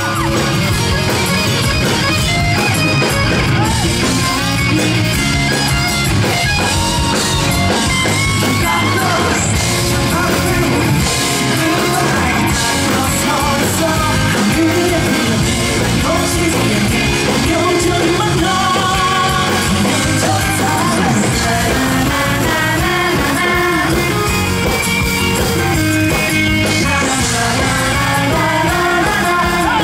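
Live rock band playing through a loud PA, a DW drum kit keeping the beat under guitar and singing.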